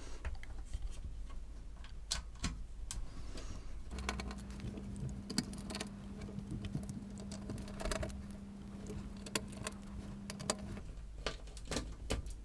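Scattered small clicks, taps and rattles as the Commodore Plus/4 motherboard is handled and lifted out of its plastic case. A steady low hum runs from about four seconds in until near eleven seconds.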